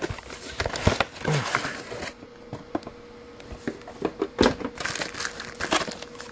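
Plastic packaging crinkling and rustling with scattered clicks and knocks as a new multimeter and its bagged test leads are unpacked and handled.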